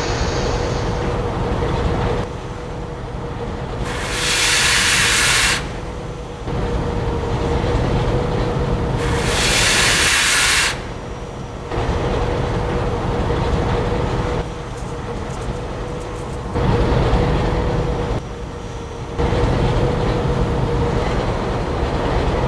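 Film sound effects of a locomotive: a steady engine rumble with a held drone, changing every few seconds, broken twice by loud bursts of steam hissing, about four seconds in and again about nine seconds in.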